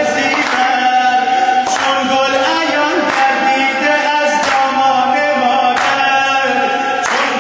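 A man singing a devotional chant into a microphone, holding long notes, over a regular sharp beat a little slower than once a second.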